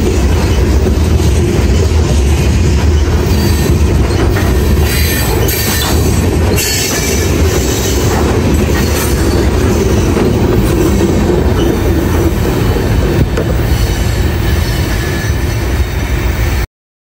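Covered hopper cars of a freight train rolling past at close range: a steady heavy rumble of steel wheels on rail, with high wheel squeal flaring between about three and nine seconds in. The sound cuts off suddenly near the end.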